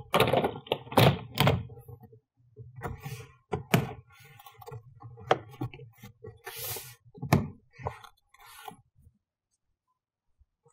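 Frunk trim panel on a Tesla Model S being set down and pressed into its clips: a string of dull thunks and sharp clicks, loudest in the first second and a half, with a short rustle partway through.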